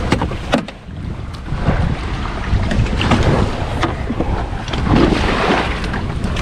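Wind buffeting the microphone and surf washing on a beach, the wash swelling about halfway through, with a few sharp light knocks.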